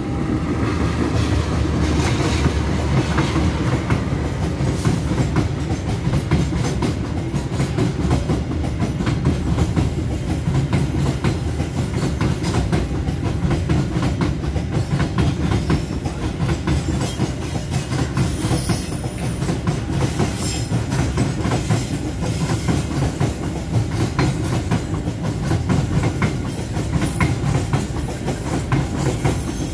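Container freight train of flat wagons rolling past at close range: a loud, steady rumble with a continuous clickety-clack of wheels over the rail joints.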